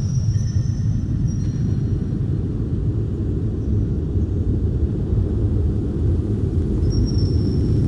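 A steady deep rumbling drone, with faint high whistling tones near the start and again about seven seconds in.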